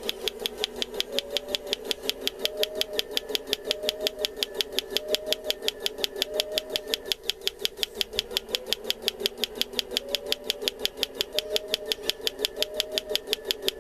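Electric breaker hammer on an RC excavator pounding, a rapid even knocking of about seven blows a second over a steady motor hum.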